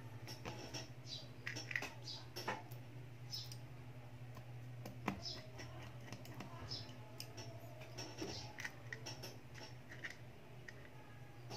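Scattered small clicks and taps of precision repair tools against a smartphone's opened frame and internal parts, over a steady low hum.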